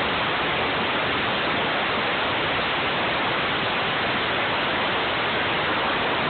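Steady, unbroken hiss of a 20,000 psi ultra-high-pressure water jet stripping paint.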